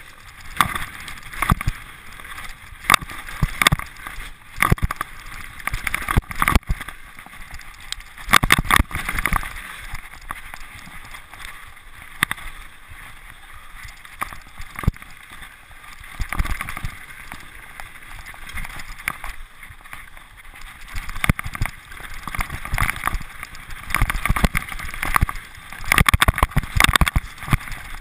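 Mountain bike riding fast over a rocky trail: irregular knocks and rattles from the bike and tyres hitting stones, thickest in two rough stretches, over a steady hiss of tyre and wind noise.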